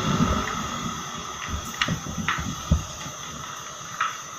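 Motorcycle rolling slowly to a stop, with a faint steady hum and several low irregular thumps, and a few sharp clicks around two seconds in and near the end.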